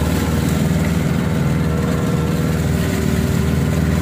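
A fishing boat's motor running steadily at trolling speed, an even low hum.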